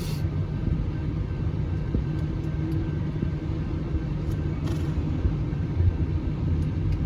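Long intermodal container freight train rolling past, a steady low rumble of its wheels on the rails.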